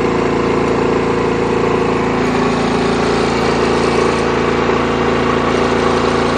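DuroMax XP9000iH inverter generator's 459cc engine running steadily on pump gas under heavy, near-maximum electrical load, with a second heater just switched on to bring the draw to about 7,700 watts.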